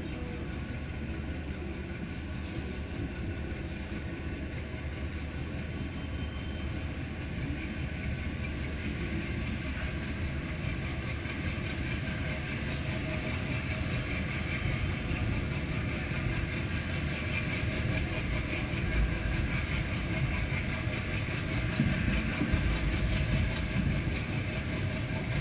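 Twin WDP1 diesel locomotives chugging as the train pulls away, the engine sound steady and growing louder toward the end.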